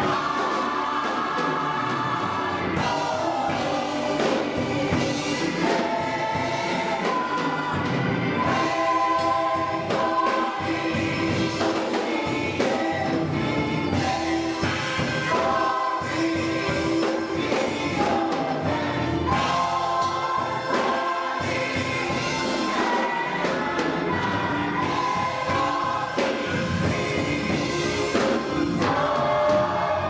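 Gospel choir singing together, accompanied by a church organ.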